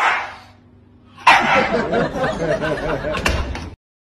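A small dog barks once, then about a second later a wavering vocal sound runs for a couple of seconds and cuts off abruptly.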